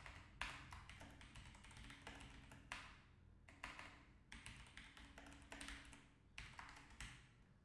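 Faint, irregular keystrokes on a computer keyboard as a short line of text is typed.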